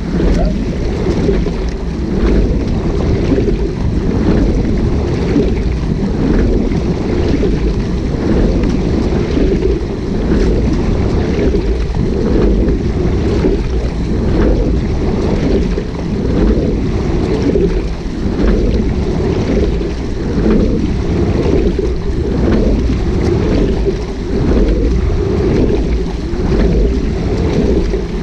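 Wind buffeting a microphone on the deck of a rowing shell, mixed with water rushing along the hull, swelling and easing in a regular rhythm with the sculler's strokes.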